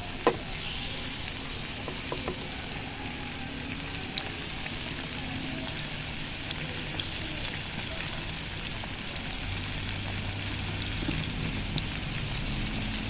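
Fish frying in hot oil in a pan: a steady sizzle with many small crackles and pops, and a sharp click just after the start.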